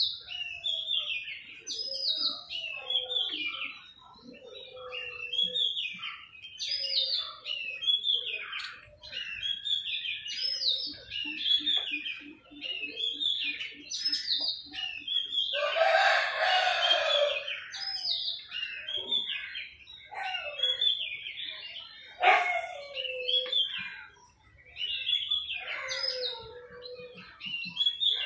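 Small birds chirping over and over in short calls, with a louder, rougher sound lasting about two seconds around the middle.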